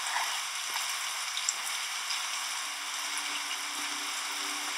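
Steady rain falling, an even hiss. Soft sustained low tones come in about three seconds in.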